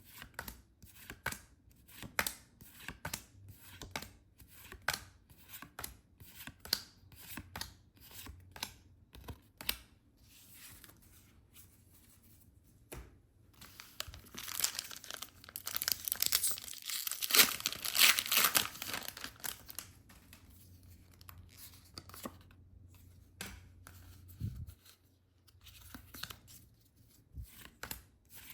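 Pokémon card packaging being handled and torn open: a run of short, sharp tearing and crinkling strokes, then a longer, louder stretch of tearing and crinkling about halfway through, then scattered short strokes again.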